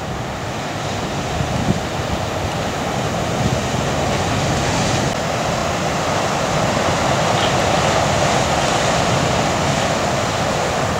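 Ocean surf breaking: a steady rush of whitewater noise that grows a little louder after a few seconds.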